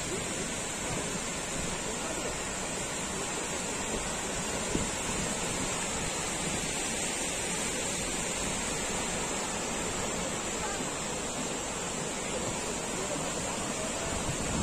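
Steady rushing of water, an even noise without strokes or pitch.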